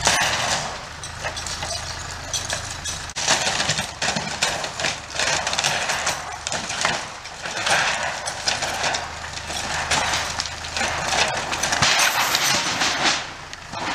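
Old wooden barn framing creaking and cracking again and again as the wall gives way, with boards splintering and clattering down about twelve seconds in.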